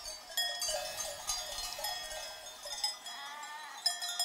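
Bells on a grazing flock of sheep and goats ringing and clinking, with a few bleats from the flock.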